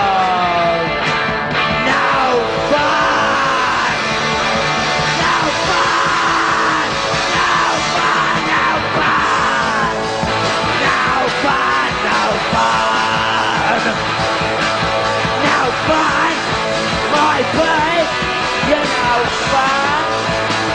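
Live punk rock band playing an instrumental break: distorted electric guitar with bending, sliding lead notes over bass and drums.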